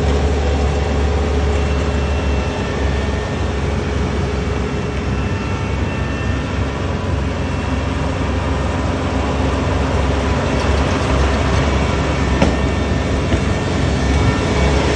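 Rice combine harvester running steadily under load: a loud, unbroken engine and machinery drone.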